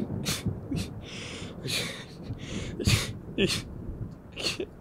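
A person crying: ragged, gasping breaths and sniffles, about eight short bursts, with a few whimpers.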